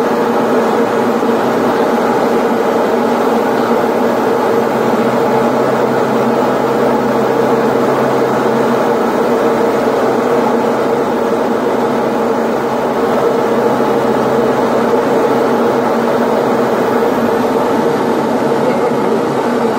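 Cabin noise of a Diamond DA-40 single-engine light aircraft during landing: the steady drone of its piston engine and propeller mixed with airflow noise.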